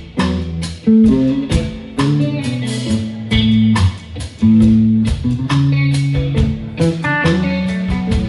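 Live rock band playing an instrumental intro: electric guitar lead over bass guitar, drum kit and keyboard, with steady drum hits.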